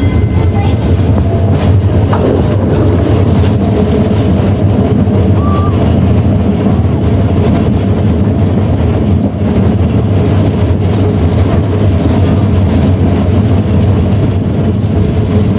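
Streetcar running along its track, heard from just outside its window: a steady, loud low drone of motors and wheels on rail, mixed with running noise.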